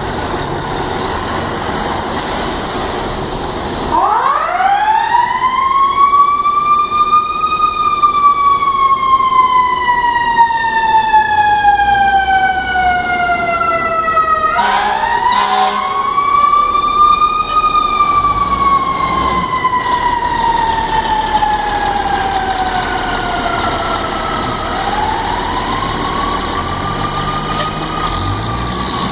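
Fire apparatus siren wailing as fire trucks respond to a call. It starts about four seconds in and goes through three slow cycles, each rising quickly in pitch and then falling away slowly.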